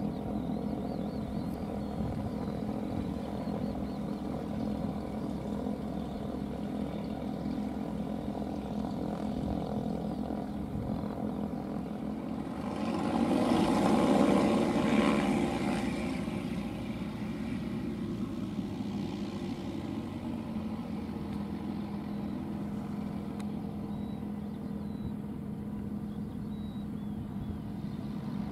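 FK9 ultralight aircraft's propeller engine running at taxi power: a steady hum that swells louder for a few seconds about halfway through, then settles back.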